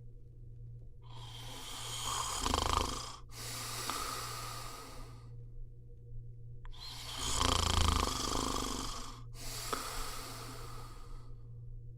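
A person snoring: two long, rasping snoring breaths, each followed by a breathy out-breath, with short quiet pauses between them. A steady low hum sits underneath.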